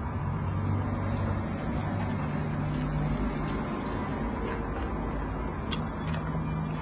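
A small dog eating from a ceramic bowl, a few faint short clicks as it chews, over a steady low hum and rumble.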